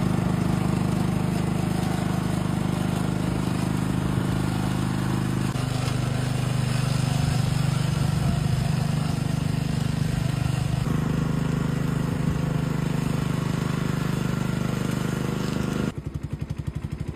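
Small engine of a grass-cutting machine running steadily, its pitch shifting slightly a couple of times, then dropping to a slower, pulsing idle near the end.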